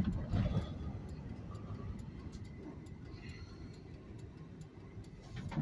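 Low road and engine rumble inside a moving car, with a regular light ticking running over it.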